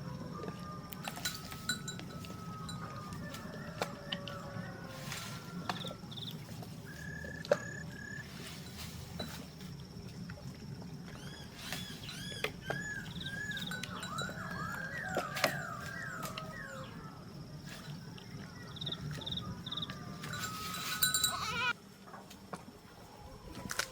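Animal calls: many short chirps, thickest in the middle, with scattered sharp clicks over a steady low rumble that stops abruptly near the end.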